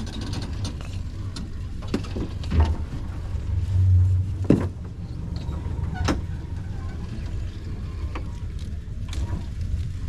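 Boat's outboard motor running low and steady, the rumble swelling briefly about two and a half and four seconds in, with a few sharp knocks and clicks from the crab pot rope being hauled in over the aluminium hull.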